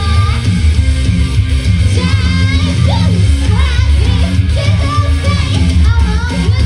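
Loud live pop-rock song with singing over guitar, bass and a driving drum beat.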